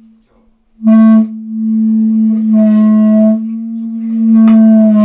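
A single sustained instrumental note at one steady pitch, sounded briefly about a second in and then held, its tone changing as it goes. A sharp click comes about four and a half seconds in.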